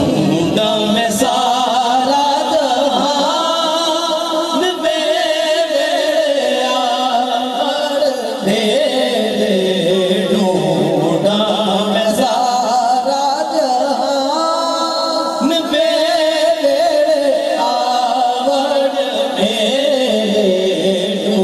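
Man singing an Urdu devotional kalam, a naat-style hymn, in a melodic chant with long, ornamented, wavering notes.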